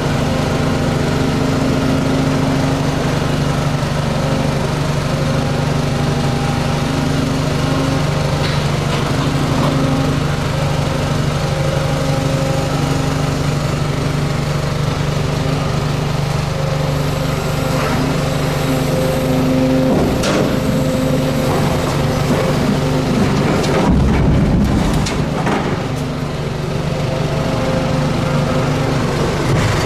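Volvo crawler excavator's diesel engine running steadily under working load while it handles demolition debris with a sorting grab. A few sharp knocks come past the middle, and a short clatter of knocks with a dull thump about two thirds through.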